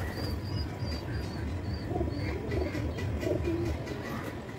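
Domestic pigeons cooing in low, wavering calls several times. A small bird's high chirps repeat through the first second or so.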